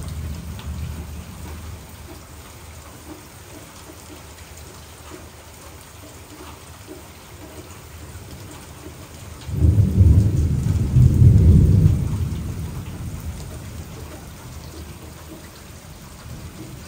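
Steady rain falling during a thunderstorm. A low rumble of thunder dies away in the first couple of seconds. About ten seconds in, thunder breaks in suddenly and loudly, rumbles for two or three seconds, then fades away.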